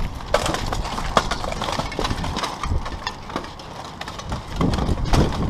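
Irregular metallic clanks and knocks of steel plate armour and weapons as two armoured fighters exchange blows with an axe and a sword and buckler, then crash together into a grapple.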